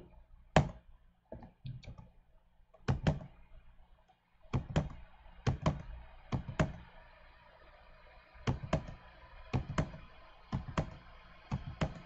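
Computer keyboard keys pressed one at a time, about twenty sharp clicks in all, mostly in quick pairs about a third of a second apart, every second or so.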